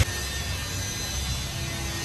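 Steady background noise with a few faint steady tones and no distinct tool clicks or knocks.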